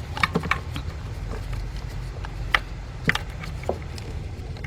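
A few scattered clicks and knocks as a 15mm socket on a speed ratchet is worked onto a bolt in a car's engine bay, over a steady low hum.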